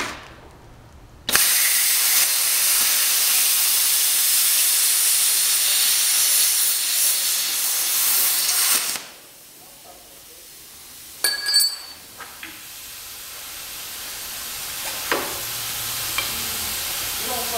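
Plasma cutter cutting through a metal bar: a loud, steady hiss that starts suddenly about a second in and cuts off about nine seconds in. A few sharp metallic clinks follow, then a fainter hiss that slowly grows.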